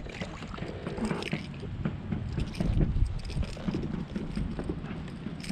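Wind rumbling on the microphone, with scattered small clicks and knocks from gear on a kayak.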